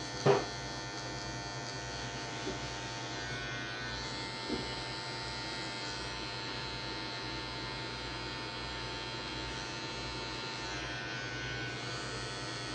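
Electric hair clipper buzzing steadily as it trims short hair at the neck and side of the head, its blade lever set close to zero for a fade. A brief louder sound comes just after the start.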